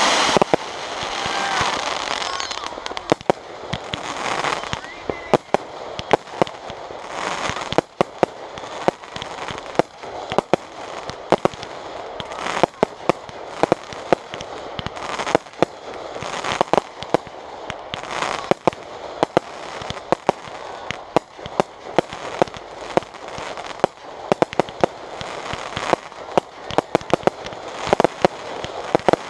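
Aerial fireworks display: a dense, continuous run of shell launches and bursts, sharp bangs several times a second, with swells of hiss and crackle between them.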